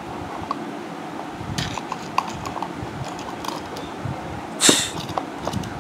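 Handling noise as a plastic six-port USB charger with a digital display is shifted and set onto a bench clamp fixture: scattered small clicks and rubbing, with one louder scrape near the end.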